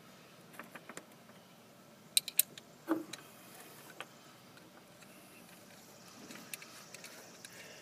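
Small clicks and knocks of a plastic-and-metal accelerator pedal assembly being handled and fitted together by hand, with a sharp run of three clicks about two seconds in and a duller knock just after.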